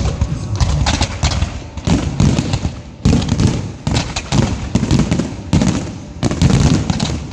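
Aerial fireworks exploding in quick, dense volleys: rapid bangs and crackling mixed with deeper booms, in several bursts.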